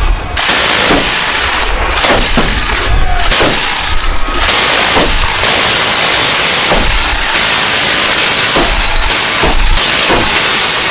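M134 Minigun, a six-barrel electrically driven rotary machine gun, firing in one continuous stream. The shots come too fast to hear apart and merge into a loud, steady rasp that starts abruptly just after the beginning.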